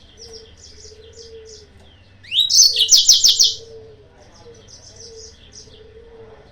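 Yellow-fronted canary song: quick, soft high chirps throughout, broken about two seconds in by a loud phrase lasting just over a second, a rising note followed by a fast run of repeated notes.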